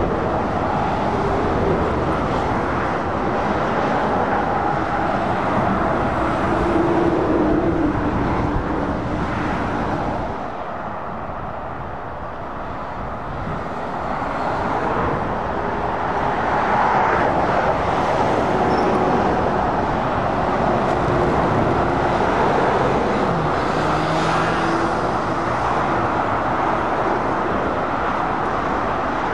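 Heavy traffic on a dual carriageway: lorries and cars passing with diesel engine hum over continuous tyre and road noise. The noise dips for a few seconds about ten seconds in, then builds again as more lorries approach.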